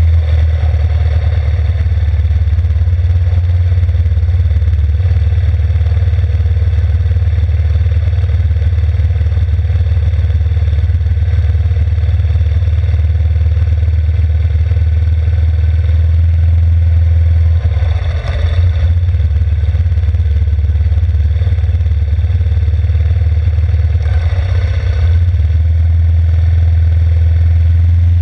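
Yamaha Grizzly 600 ATV's single-cylinder four-stroke engine running steadily at low, even speed while riding along a grassy path, with two short bursts of noise, one past the middle and one near the end.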